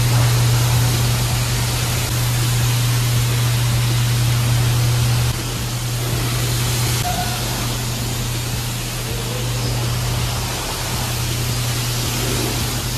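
High-pressure car-wash wand spraying water onto a pickup truck's body: a steady hiss of spray, with a steady low hum underneath. The level drops a little about five seconds in.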